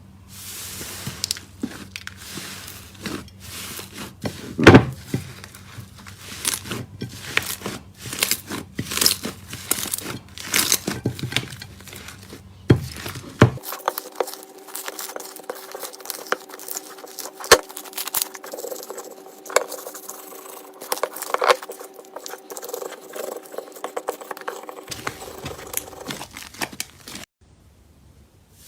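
Slime being squished and pressed by hand: a dense, irregular run of small crackling clicks and pops, with some sharp louder snaps. The background hum changes abruptly about halfway through, and the sounds thin out near the end.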